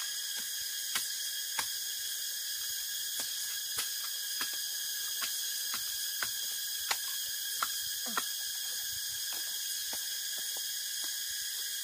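Insects droning steadily at a high pitch in the bamboo thicket, with scattered sharp snaps and crackles of dry bamboo twigs and leaf litter as a person crawls through them.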